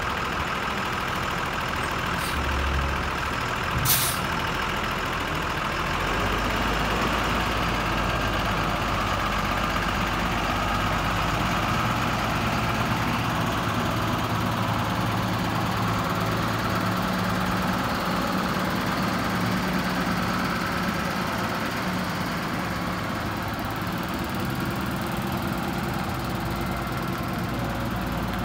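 Diesel engine of a Gradall G3WD wheeled excavator running steadily, with one sharp click about four seconds in.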